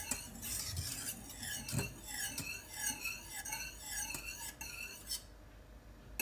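Wire whisk scraping and clinking against a stainless steel saucepan as it stirs a milk and cornstarch cream mixture on the heat, with scattered clicks of the wires on the pan. The whisking stops about five seconds in.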